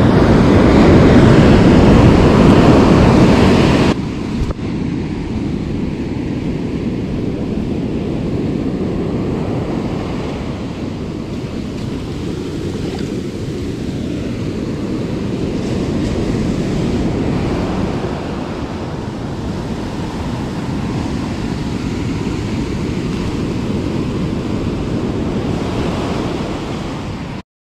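Ocean surf washing steadily onto a beach. It is louder for the first four seconds, then drops abruptly to a lower, even wash.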